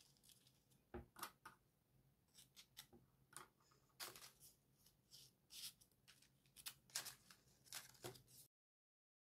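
Faint, irregular paper rustles and small crisp clicks as folded paper 3D origami modules are picked up and slotted together by hand. The sound cuts out completely near the end.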